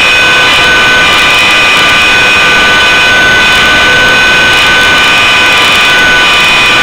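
Align T-Rex 600 CF radio-controlled helicopter in flight, heard from a camera mounted on board: a loud, steady high whine of the drivetrain over an even rushing noise.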